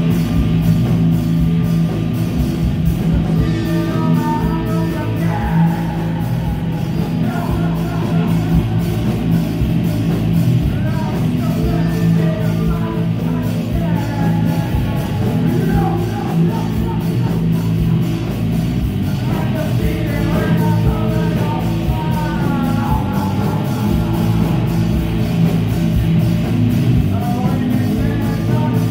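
Live rock band playing loud and steady: electric guitar, bass guitar and drums, with a male lead vocal singing over them from a few seconds in.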